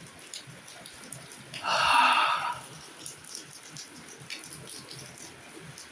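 Heavy rain falling steadily, with scattered drops ticking on a surface. One brief, louder sound cuts in about two seconds in.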